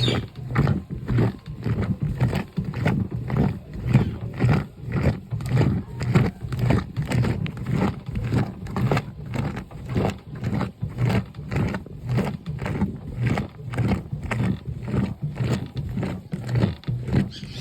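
Washing machine running with a load of sneakers in the drum: a steady churning with low thuds repeating about two to three times a second.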